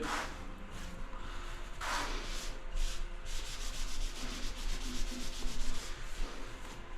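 Rubbing and scraping, with a fast, even rattle of ticks in the second half.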